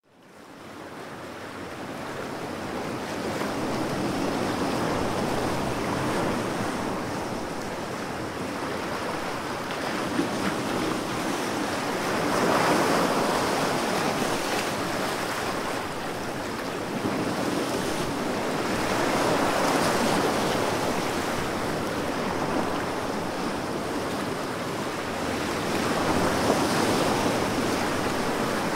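Wind buffeting the microphone over open water, with waves lapping and splashing, fading in at the start and then swelling and easing every few seconds.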